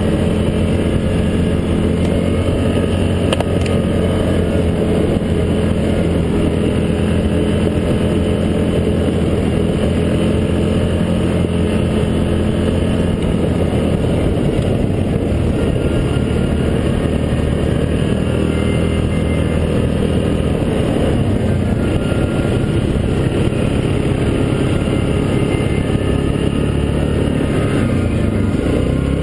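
ATV (quad) engine running steadily under way, its pitch shifting near the end as the throttle changes.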